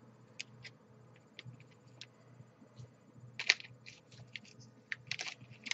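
Crinkling and rustling of a plastic candy-kit packet being handled, with scattered light clicks, a louder crinkle about three and a half seconds in and more rustling near the end, over a faint low hum.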